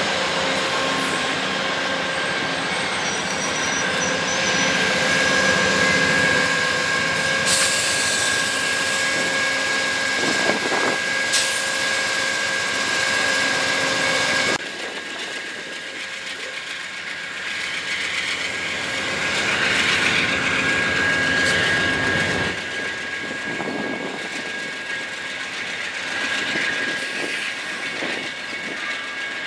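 Amtrak Superliner passenger train rolling past: a steady rumble of wheels on rail with a high tone running through it. About halfway through the sound cuts abruptly to the quieter rumble of the train pulling away behind its diesel locomotives.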